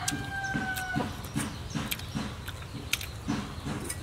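A rooster crowing: its held note falls slightly and breaks off about a second in. After it comes a run of short clicks and soft low pulses.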